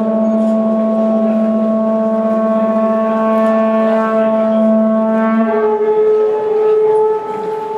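Two horagai (Japanese conch-shell trumpets) blown together in long held notes, one low and one higher. The low note breaks off about five and a half seconds in, a higher note carries on, and the sound drops away near the end.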